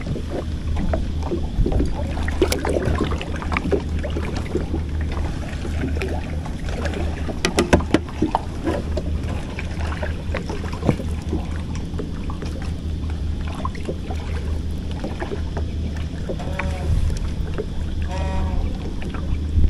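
Steady low hum with scattered knocks and clicks as a fishing rod is handled in a small wooden boat, a few sharper clicks about halfway through.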